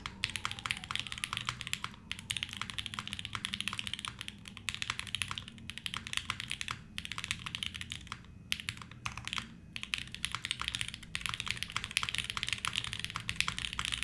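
Typing on a Navi60 custom 60% mechanical keyboard built with Tangie switches, GMK keycaps and an O-ring-mounted aluminium plate: a fast, continuous run of key clacks with a few short pauses. The sound is muted and soft, the traditional O-ring sound, which the typist puts partly down to the switches being a little over-lubed.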